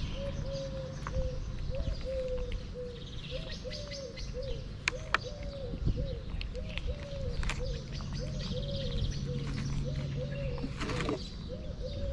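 A cat eating raw meat from a plastic tub, with scattered sharp chewing clicks. Throughout, a bird calls a quick run of short repeated notes, about two to three a second, and small birds chirp briefly now and then.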